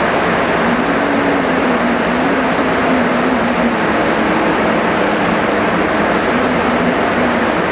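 Heavy rain falling as a dense, steady hiss, with a low hum underneath that wavers slightly in pitch.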